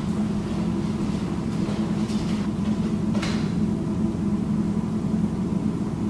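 A steady low hum, with a brief rustle about three seconds in.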